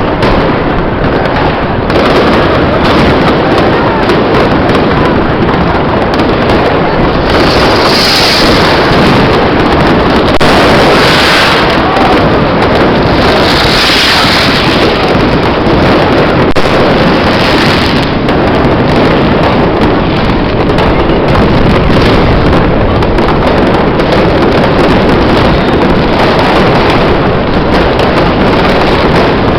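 Loud, unbroken din of New Year's fireworks, bangs and crackles merging into one dense roar, with three brief hissing swells partway through.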